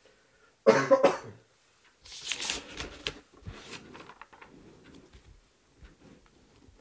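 Paper textbook pages being turned by hand: a loud rustle of paper about two seconds in, then softer rustling and small clicks as the pages settle. Just before, a short vocal sound, like a cough or a throat-clear, is the loudest moment.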